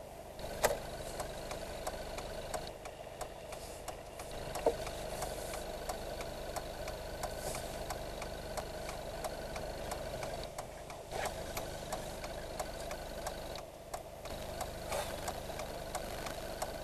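Car engine running while driving, heard from inside the cabin: a steady hum with a regular light ticking and a couple of sharper clicks.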